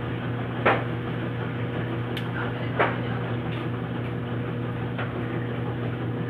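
A steady low electrical hum, with two short knocks about a second and three seconds in and a few fainter ticks, as small glass vaccine vials are handled and set down on a washing machine's metal top.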